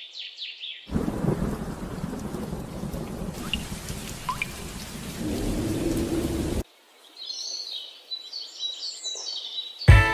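Nature soundtrack: a few bird chirps, then steady rain with thunder for about six seconds that cuts off suddenly, followed by birds singing. Guitar music starts at the very end.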